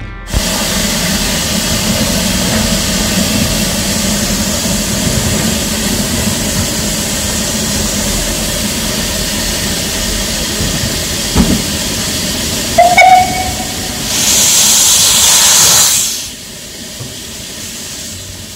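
Saxon IV K narrow-gauge steam locomotive standing and hissing steadily, with a single knock and then a short toot of its steam whistle past the middle. A loud rush of steam from its cylinder drain cocks follows for about two seconds, then the hiss drops quieter.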